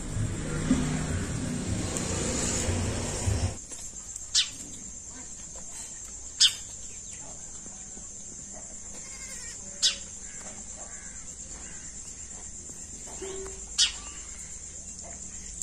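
House sparrow giving single sharp chirps, four of them a few seconds apart, over a steady high hiss. Louder background noise fills the first three and a half seconds, then cuts off suddenly.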